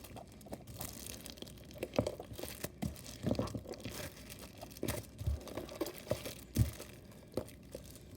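White Elmer's glue slime being kneaded and squeezed by hand, worked toward its final texture. It gives an irregular run of small sticky clicks and pops.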